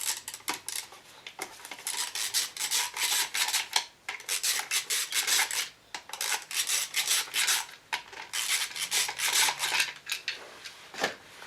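Ratchet wrench clicking rapidly in several bursts of a second or two each, undoing the small bolts that hold the scooter engine's cooling fan.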